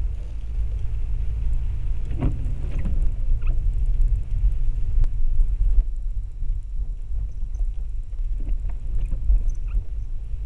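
Low, steady rumble of a car driving on wet roads in the rain, picked up by a dash camera's microphone, with scattered light ticks.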